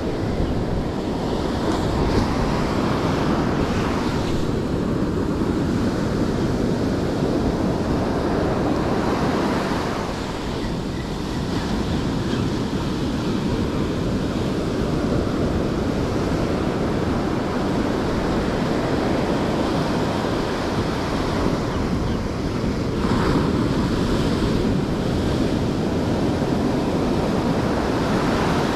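Ocean surf washing onto a beach, a steady dense wash of noise, with wind blowing across the microphone.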